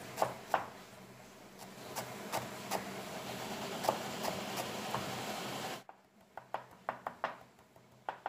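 Kitchen knife chopping fresh coriander on a wooden cutting board: repeated sharp taps of the blade on the wood. A steady hiss lies under the taps and drops away abruptly about six seconds in. After that the taps come clearer and faster, about four or five a second.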